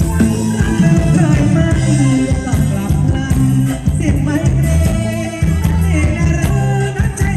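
Live band playing Thai ramwong dance music, with a singing voice over a steady, strong bass line.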